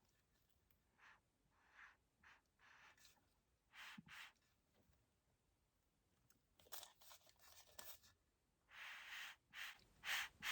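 Near silence with faint, brief rustles and scrapes scattered through, heaviest toward the end: small handling noises.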